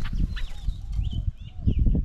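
Small wild birds calling in short chirps and slurred whistled notes, over low fluttering thumps that grow loudest near the end.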